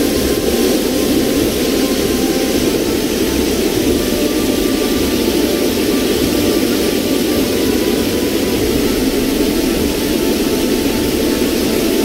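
Steady rushing of flowing river water over rocks, an even, unbroken noise.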